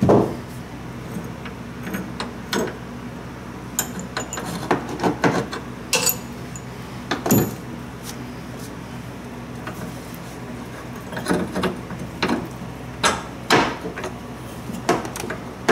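Irregular metallic clinks and knocks as loosened bolts and a hand tool are worked out of a boat engine's metal mount bracket, some strikes ringing briefly. A steady low hum runs underneath.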